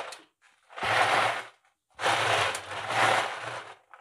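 A frozen 2-litre plastic water bottle being handled and shaken: two bouts of crackling plastic and ice rattling inside, the second longer.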